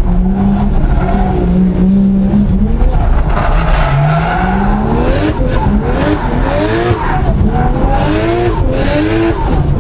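Tuned 500 bhp HKS and Blitz-modified Nissan Skyline engine running hard, heard from inside the cabin, with tyres squealing as the car drifts. From about four seconds in the revs climb again and again in quick rises as the throttle is worked through the slides.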